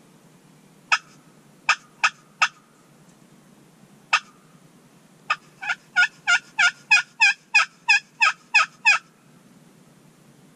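Slate turkey call worked with a striker, yelping like a hen turkey: four short, sharp yelps near the start, a single yelp a little later, then a quick even run of about a dozen yelps, some three a second, that stops short. A high-pitched, loud locator call meant to make a distant gobbler answer.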